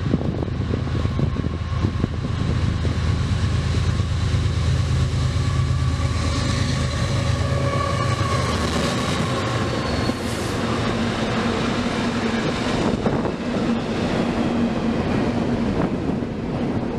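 BNSF diesel locomotives hauling a double-stack intermodal freight train approach and pass at track speed, their engines' low drone strong until about nine seconds in. The double-stack container cars then roll by with a steady rumble and clatter of wheels on rail.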